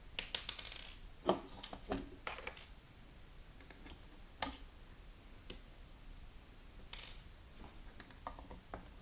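Small clicks and taps of a screwdriver and tiny screws against the LED light's housing while the panel screws are undone. A quick rattle of clicks comes just after the start, then single taps spaced a second or more apart.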